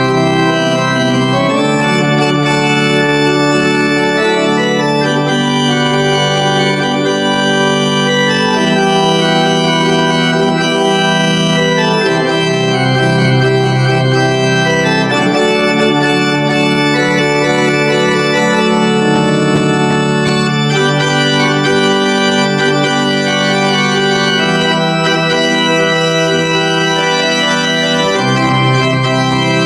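Church pipe organ playing sustained full chords on the manuals, the harmony shifting every second or so at a steady loudness.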